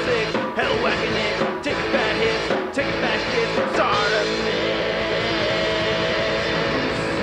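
Rock song with a singer, ending in a long held sung note over the band.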